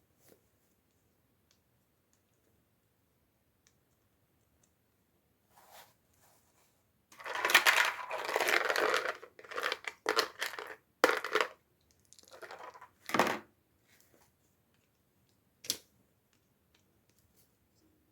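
Toy packaging being torn open and crinkled in a run of loud rustling bursts starting about seven seconds in, followed by a single sharp click near the end.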